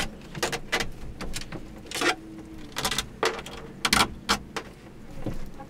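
Irregular knocks, clacks and rattles of the skylight frame being handled and worked loose from the ceiling of a box truck, a dozen or so sharp hits spaced unevenly.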